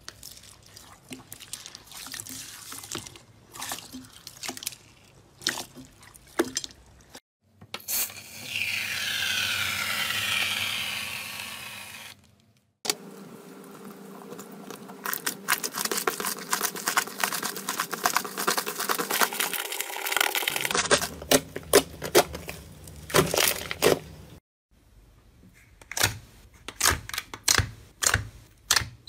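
Hands squishing, stretching and poking clear slime, one batch full of small beads: wet squelches and many quick popping, crackling clicks, thickest in the second half. About eight seconds in comes a four-second stretch of steady rushing noise.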